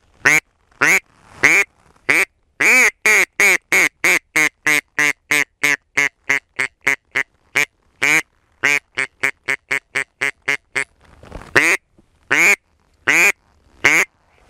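Mouth-blown mallard duck call worked by a hunter to draw ducks to his decoys: a few single quacks, then a long run of quacks that come quicker and shorter, a pause, and four more single quacks near the end.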